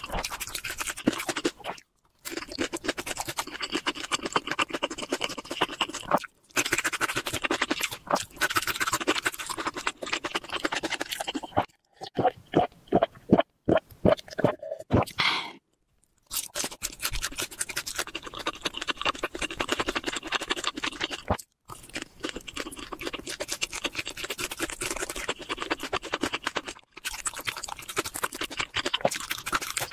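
Close-miked crunching and chewing of crispy fried chicken, in several short stretches separated by brief silent cuts. About halfway through comes a run of gulps as a drink is swallowed from a glass.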